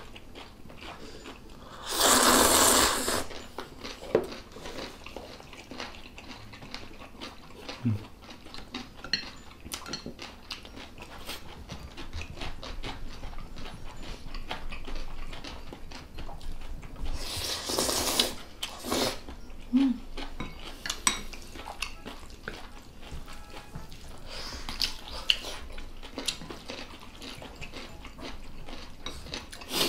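Table-eating sounds: chopsticks and spoons clicking against bowls and a metal pan, with two loud slurps of noodles, one about two seconds in and one a little past halfway.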